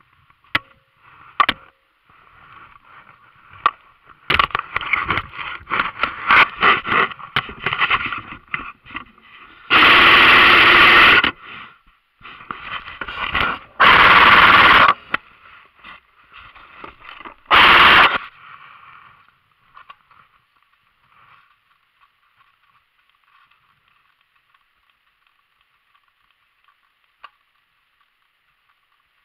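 Airsoft guns firing: a few single shots, then a run of rapid shots for about five seconds, followed by three loud rushing bursts of noise, the first about a second long. A faint steady hiss goes on after the shooting stops.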